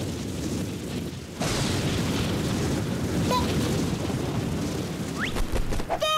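Cartoon explosion sound effect: a sudden low, rumbling blast about a second and a half in that keeps rumbling for several seconds. A brief rising whistle comes near the end.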